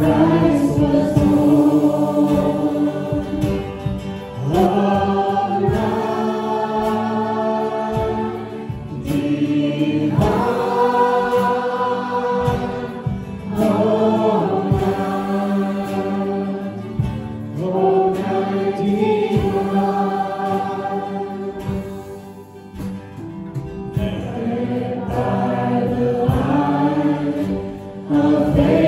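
Choir singing, in long held phrases a few seconds each over a steady low accompaniment.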